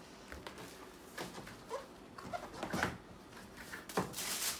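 Cardboard shoe box and its tissue-paper wrapping being handled: scattered light knocks and paper rustling, with a louder, brief rustle about four seconds in.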